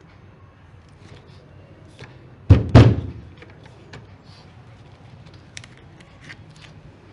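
Two heavy thumps in quick succession, about a quarter second apart, each dying away briefly, followed later by a few faint light clicks.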